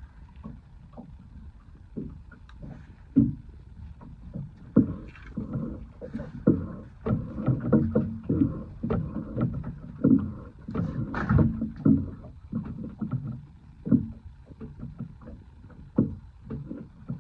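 Water slapping against the hull of a small fishing boat, with irregular knocks and thumps of gear banging around on board, busiest in the middle stretch.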